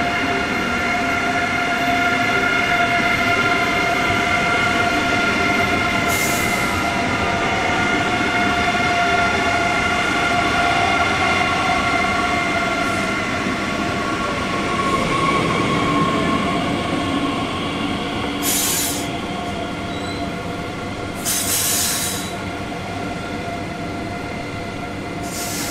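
A long ICE high-speed train rolling past on curved track, its wheels and running gear giving off several steady high-pitched squealing and whining tones. A few short hisses come in the second half.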